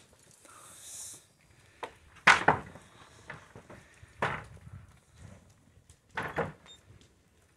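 Wooden corral fence boards being knocked as steers push past: four sharp knocks spaced about two seconds apart, the loudest a double knock a little over two seconds in.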